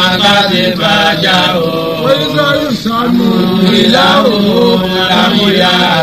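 Chanted Quran recitation: a single voice holding and bending long, drawn-out notes with hardly a break.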